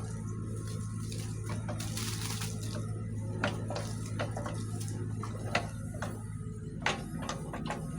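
Kubota U27-4 mini excavator's diesel engine running steadily, with scattered sharp clicks and knocks over a hiss.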